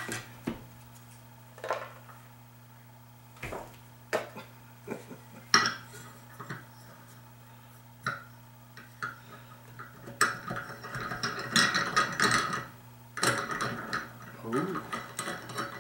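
Parts of an RC car work stand being handled and fitted together: scattered clicks and knocks, then two stretches of denser rattling clatter in the second half.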